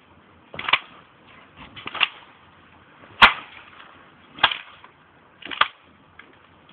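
Tree branch creaking and cracking under a person bouncing on it: five short, sharp cracks at an even pace, about one every second and a quarter, the loudest about halfway through.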